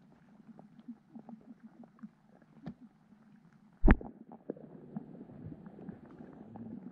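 Underwater sound picked up by a submerged camera: a low, muffled hum with many small scattered clicks and ticks, and one loud knock about four seconds in.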